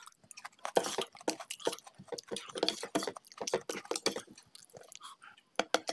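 Eating by hand: fingers squishing and mixing rice with mutton curry on a plate, and chewing, heard as a run of irregular wet clicks and smacks.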